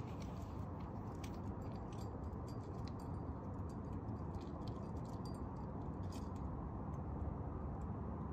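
Steady low rumble of outdoor background noise, with faint scattered clicks and clinks of climbing gear and rope being handled.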